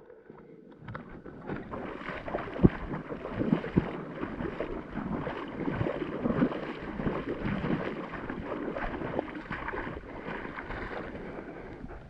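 Irregular sloshing and splashing of water with rustling and scattered small knocks.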